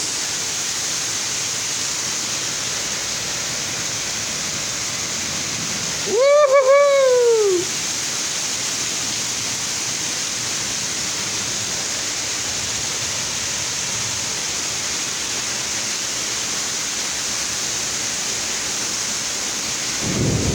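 Heavy rain pouring down in a steady, even hiss. About six seconds in, a person's voice gives one drawn-out exclamation that rises and then falls.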